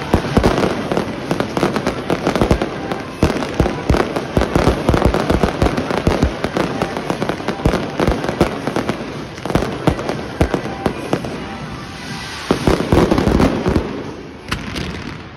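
Fireworks display: a dense barrage of aerial shell bursts, many sharp bangs a second over continuous crackling, with a last heavy flurry that thins out near the end.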